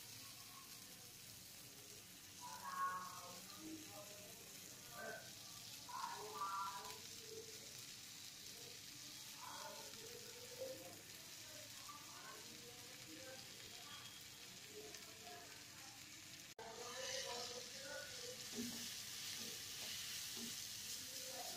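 Hot oil sizzling in a pan with strips of potato and green beans frying in it, a steady hiss. About 16 seconds in it cuts out for an instant and comes back louder.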